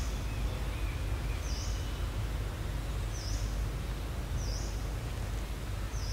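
Outdoor forest ambience: a steady low rumble under a soft noise haze, with a short high chirp repeating about every second and a half.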